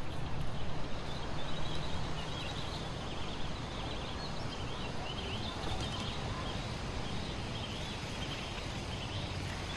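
Woodland ambience: steady outdoor background noise, with small birds chirping high and often in the background.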